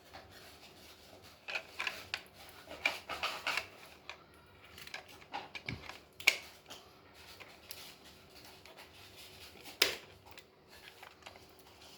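Handling of toy packaging: plastic rustling and clicking as the box and its contents are opened and moved, with a cluster of rustles about two to four seconds in and single sharp clicks near the middle and about ten seconds in.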